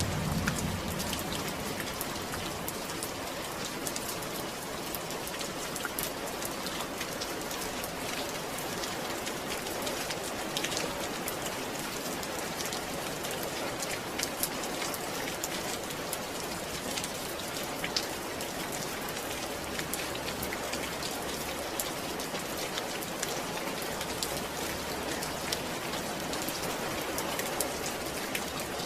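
Steady rain falling: a dense, even patter with single drops ticking sharply here and there.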